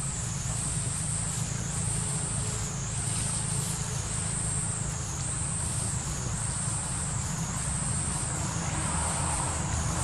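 A chorus of insects in the trees: a high-pitched buzzing drone that swells and fades about once a second. Under it runs a steady low rumble.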